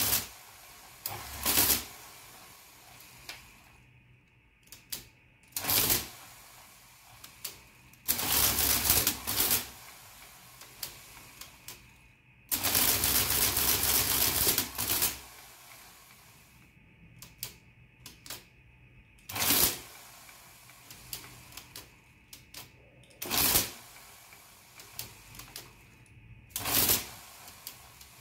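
1956 Olivetti Tetractys electromechanical printing calculator, running with its body removed, clattering through repeated calculation cycles. Longer runs of about two seconds as it works through multiplications alternate with shorter cycles and the small clicks of number keys being pressed.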